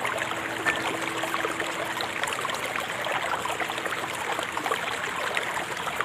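River water flowing with a steady, dense babble of many small splashes and trickles.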